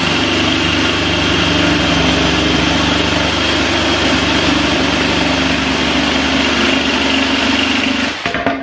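Cordless drill driving a reciprocating saw attachment, its stock blade sawing through plywood with a steady running buzz that stops near the end as the cut goes through.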